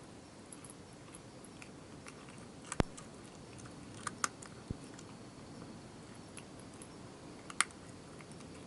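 Cat crunching dry food: a few sharp, scattered crunches over quiet background noise.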